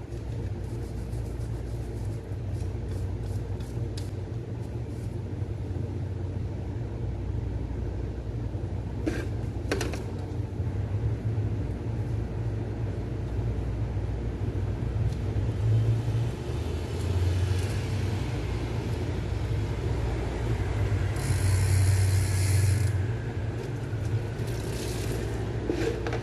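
Bicycle drivetrain being worked during cleaning: the rear hub ticking like a ratchet as the cranks and wheel are turned, over a steady low hum. There are a couple of sharper clicks about a third of the way in and a short hiss near the end.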